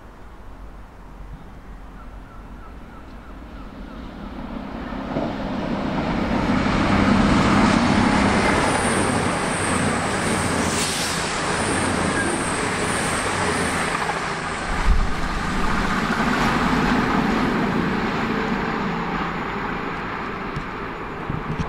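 Two coupled CrossCountry Class 220 Voyager diesel-electric units running through at speed: underfloor diesel engines and wheels on rail growing louder over the first several seconds, then a steady, loud passing noise that continues until near the end.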